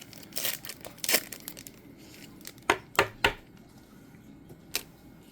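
Baseball trading cards and their foil pack wrapper being handled: short rustles and crinkles, then a quick run of three sharp clicks about halfway through and one more near the end, as the cards are shuffled and snapped against each other.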